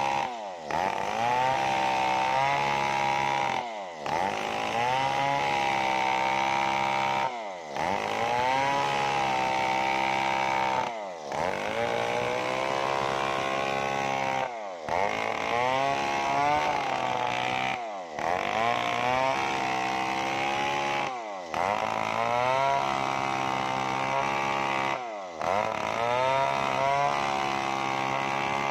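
Stihl two-stroke chainsaw running at full throttle under load while ripping lengthwise along a waru (sea hibiscus) log. Its engine note dips briefly and recovers about every three and a half seconds.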